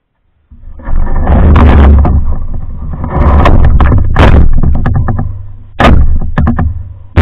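Loud bumps, knocks and scraping of a lightweight pack canoe being lifted off the ground, picked up boomy through the camera mounted on its hull. It starts suddenly about half a second in, with sharp knocks near the middle and about six seconds in.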